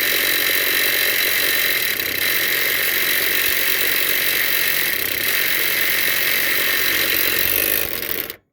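Ryobi P235 brushed impact driver hammering continuously in reverse on a riding mower's blade bolt through a 15/16 impact socket. It cuts off suddenly near the end, when the stubborn bolt finally breaks loose.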